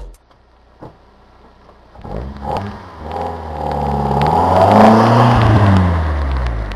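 Exhaust note of a 1991 Toyota Celica GT-S's 2.2 L 5S-FE four-cylinder through a Pacesetter Monza cat-back: two short blips about two seconds in, then the engine note climbs in pitch and loudness to a peak near five seconds in and falls away.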